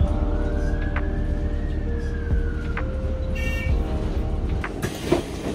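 A double-decker bus running, heard from the upper deck: a steady low rumble, with a whine that rises slowly and then falls over about three seconds. Near the end come a few knocks.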